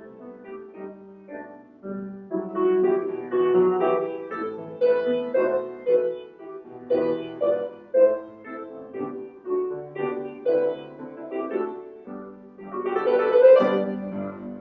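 Piano music, a steady run of struck notes that swells louder near the end.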